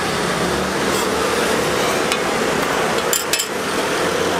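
Egg crepe sizzling on a hot flat-top griddle, with a few sharp metal clacks of tongs and spatula against the steel plate, two of them close together about three seconds in.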